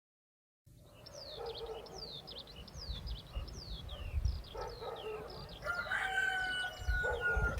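A rooster crowing, with a held call in the second half, over many small birds chirping in quick falling notes; the sound fades in just under a second in.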